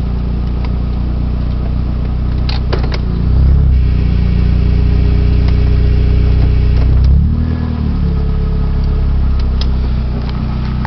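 1995 Geo Metro's 1.3-litre four-cylinder engine running with its automatic transmission, which the owner says is making odd noises that cannot be good. A few clicks come just before the engine note steps up and gets louder about three seconds in; the pitch glides and changes again about seven seconds in.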